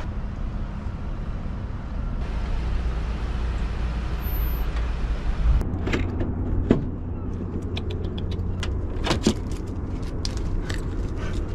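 Pickup truck's engine running at low speed as it pulls into a parking space, a steady low rumble. About halfway through this gives way to the truck's door being opened, with a string of sharp clicks and clunks.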